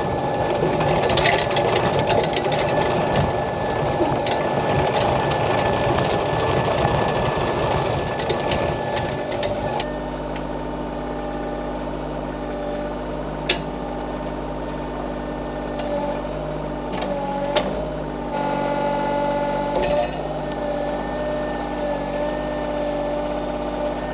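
Excavator diesel engine running under load, with steady whining tones and a few sharp clanks. A rough low rumble in the first part stops about ten seconds in, leaving the engine and whine.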